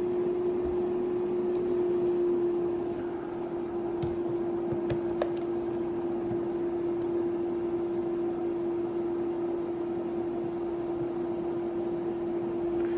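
Steady, single-pitched hum of a kitchen appliance running, with a few faint clicks and knocks about four to five seconds in.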